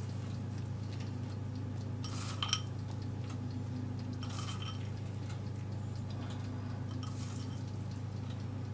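A few faint clicks and light rattles as chopped walnuts are scattered by hand from a small bowl onto raw minced meat and foil, over a steady low hum.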